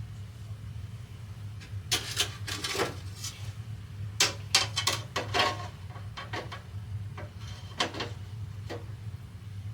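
Irregular sharp knocks and clicks, a dozen or so in clusters, like things being handled and bumped, over a steady low hum.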